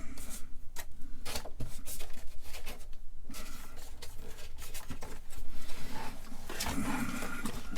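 Rustling and irregular light clicks of hands handling ribbon cables and connectors inside a computer case, with a denser patch of scraping near the end.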